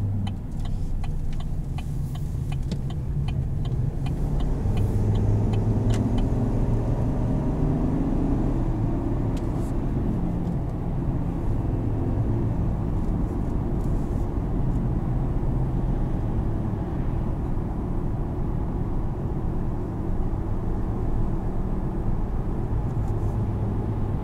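Cabin sound of a 2020 Chevrolet Silverado 1500 Z71 pickup on the move: steady engine hum and road noise, the engine note rising as the truck accelerates. A turn signal clicks about three times a second for the first few seconds.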